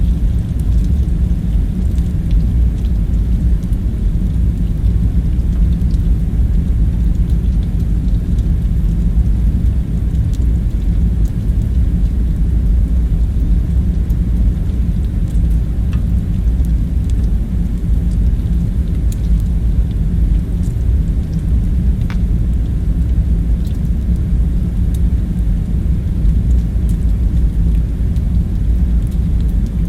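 Steady low rumble with a faint hum in it, unchanging throughout, with a few faint light clicks now and then.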